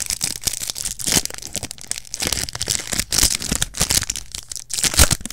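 Foil trading card pack crinkling and tearing as it is worked open by hand, with the loudest sharp rip about five seconds in.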